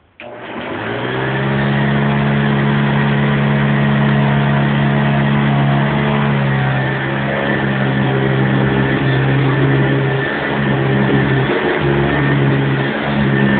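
A 1976 Hoover Convertible upright vacuum cleaner is switched on. Its motor spins up over about a second, then runs with a steady hum that wavers a little in the second half. It has a new drive belt.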